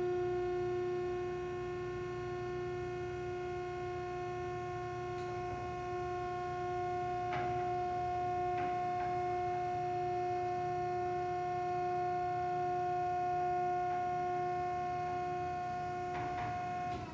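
Hydraulic power unit of a PTR Philadelphia Tramrail vertical cardboard baler, its 10 HP motor and pump running with a steady whining hum, with a few faint clicks.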